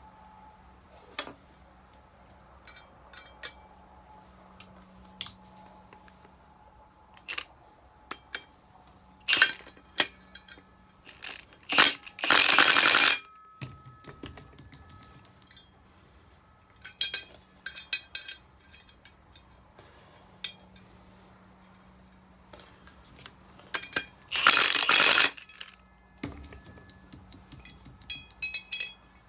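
Metal tools and parts clicking and clinking as 3/8 bolts are tightened on a drill closing-wheel assembly, with two loud bursts of about a second each, about twelve seconds in and again near the end, as a tool runs the bolts down.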